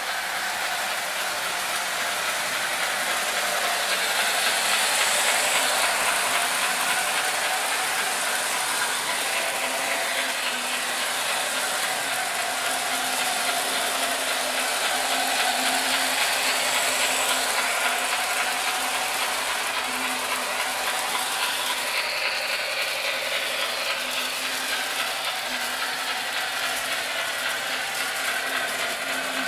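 Model train, hauled by a model 241P steam locomotive, running around a track helix: a steady mechanical whirr of the locomotive's motor and gearing, with the wheels running on the rails.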